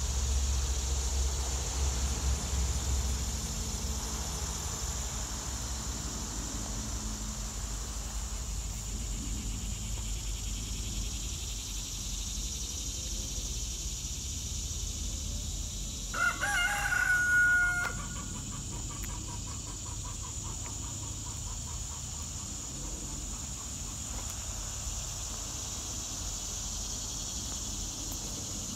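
A rooster crows once, about halfway through, in one call of about a second and a half, over a steady high buzz of insects.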